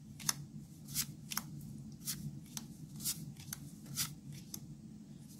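Magic: The Gathering trading cards being handled and flipped through by hand: an irregular series of crisp card snaps, roughly two or three a second, over a low steady hum.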